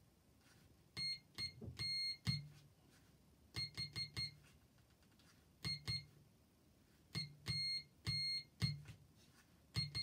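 Small electronic buzzer on a homemade circuit, keyed by a push switch to send Morse code. It gives a high-pitched beep in long dashes and quick dots, with pauses between letters, and the switch clicks at each press.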